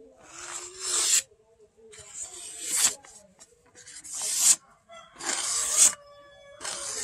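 A billhook's steel blade slicing through a hand-held sheet of paper five times, about every second and a half. Each cut is a rasping hiss that swells and stops sharply as the blade goes through, a test of the new edge's sharpness.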